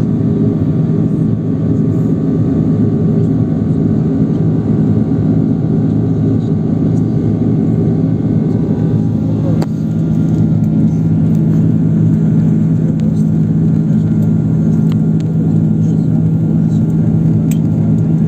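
Jet airliner cabin noise during the climb after takeoff: the steady loud drone of the engines and rushing air, with a constant low hum. A faint click about halfway through.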